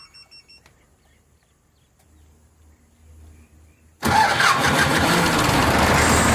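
A car engine starts abruptly about four seconds in and keeps running loudly, after a few faint electronic beeps at the start from the car's alarm system.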